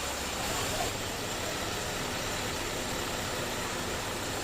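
Car engine idling roughly, with a steady exhaust sound.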